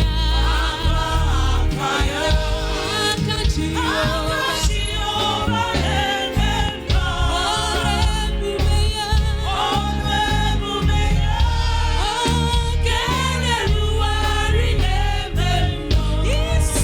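Gospel praise-and-worship music: voices singing over band accompaniment with a heavy bass.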